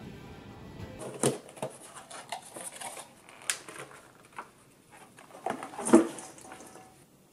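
Plastic takeout containers being handled and food tipped and shaken in a stainless steel mixing bowl under a clear plastic lid: irregular clicks, rattles and knocks of plastic on metal, the loudest about six seconds in. A steady shop room noise comes first, for about a second.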